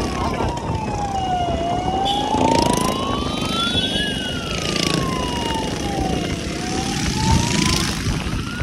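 A siren wailing: one tone gliding slowly up and down, a full rise and fall about every five seconds, over steady rushing road and wind noise.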